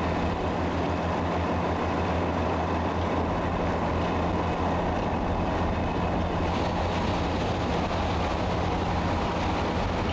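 Steady low drone of heavy diesel machinery over a broad rushing wash of water and sand slurry pouring from a dredge discharge pipe. The rushing hiss turns brighter about six and a half seconds in.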